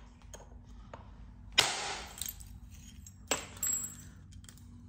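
Two sharp strikes of a knapping tool on heat-treated chert, about a second and a half and three seconds in, each followed by a short gritty, clinking rattle as flakes come off, with a few faint clicks before them.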